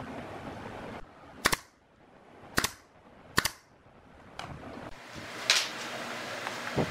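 Pneumatic brad nailer firing three sharp shots about a second apart, driving nails into plywood, followed by a further sharp click and a low knock.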